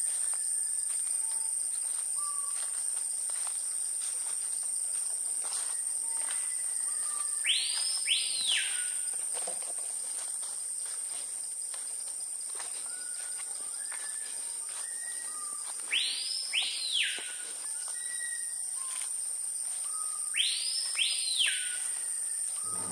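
Tropical rainforest ambience: a steady high drone of insects, with a bird giving a loud call of two quick rising-and-falling whistled swoops three times. Other birds add short whistled notes between the calls.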